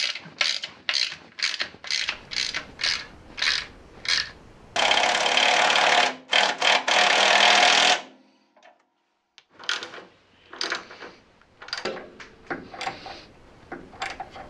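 Socket ratchet wrench tightening bolts, clicking in short strokes about three times a second. Then comes a louder continuous rasping buzz for about three seconds that cuts off suddenly. After a short gap, more irregular ratchet clicks follow.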